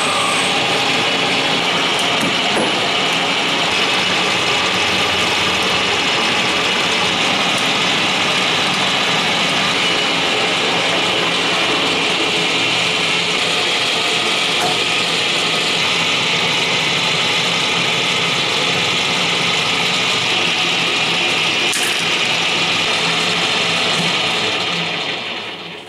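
Warner & Swasey No. 2 turret lathe running, with a steady mechanical whir from its motor and headstock gearing. Near the end the machine is switched off and the sound dies away over about a second.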